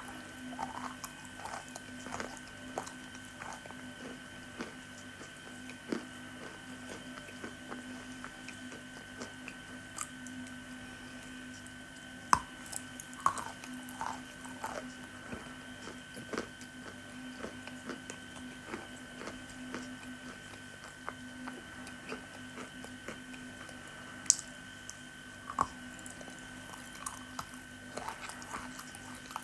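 A person chewing wet edible clay close to the microphone: soft squishy, crackly mouth sounds with scattered sharp clicks, the sharpest about twelve and twenty-four seconds in, over a steady faint hum.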